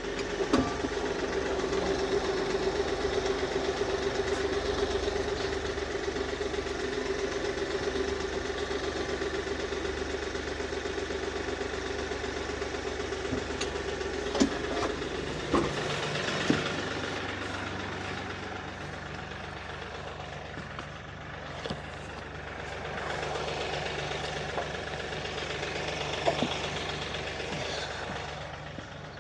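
Kioti DK6010 tractor's diesel engine running as the tractor is driven up and then idles. Its note changes about halfway through, and there are a few sharp metal clanks.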